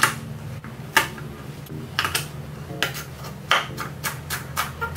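Kitchen utensils and dishes clinking and knocking: a few separate knocks about a second apart, then a quicker run of about four light taps a second near the end.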